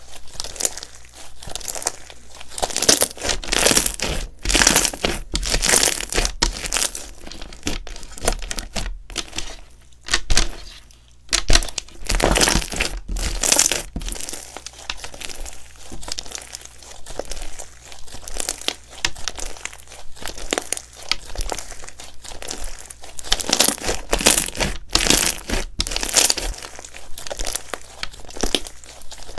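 Slime being worked by hand: an uneven run of small clicks and crackles that swells and fades every second or two as it is squeezed and pulled.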